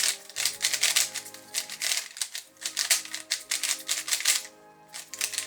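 Plastic 3x3 speedcube being turned fast, its layers clicking and clacking in quick bursts with brief pauses; the cube is freshly lubricated with a pure silicone speed lubricant. Background music plays underneath.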